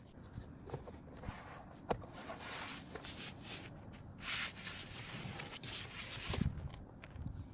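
Soft rubbing and rustling with a few light clicks, and some low thumps near the end.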